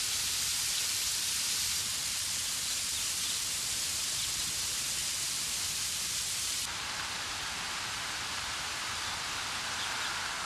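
Water falling in thin streams and splashing down the wet log crib of a water mill's wooden flume, a steady hiss like rain. About two-thirds of the way through, the sound steps down and turns duller.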